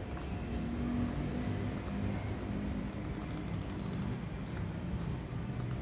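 Light clicking of laptop keys being typed, in scattered taps with a quick run of clicks about three seconds in, over a steady low background hum.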